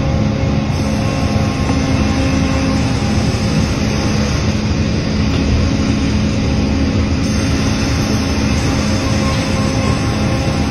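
Cleereman Lumber Pro sawmill and its log carriage and conveyor running: a loud, steady machine drone with a constant hum.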